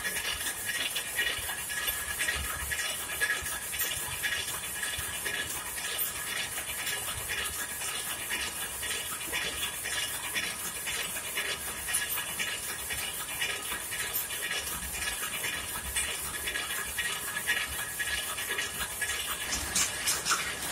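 Converted rapier loom with a tuck-in selvedge device running, a rapid, even clatter of beats as it weaves cloth over a steady mechanical hiss.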